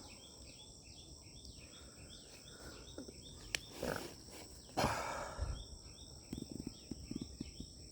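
Faint insect chorus: a steady high-pitched buzz of insects with a quick repeated chirping over it, and a couple of brief rustles about four and five seconds in.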